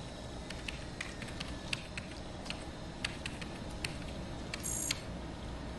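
Scattered light clicks of a computer keyboard being tapped, over a low steady hum, with a brief high electronic chirp near the end.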